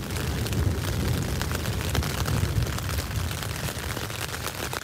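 Rain hitting the tent, heard from inside: a dense patter of many sharp drop impacts over a loud low rumble.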